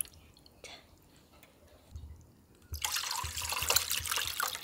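Salt water and raw oysters poured from a glass bowl into a mesh sieve over a stainless steel bowl: a loud splashing pour starts about three seconds in, after a quiet stretch of hands swishing the oysters in the water.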